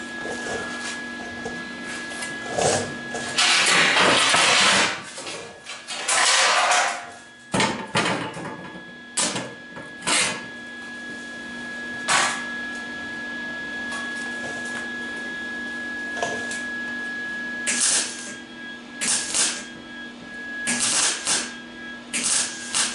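Scrap sheet steel being pulled out and handled: two long scraping, rattling stretches, then scattered sharp clanks as pieces are set down. A steady electrical hum with a faint high whine runs underneath.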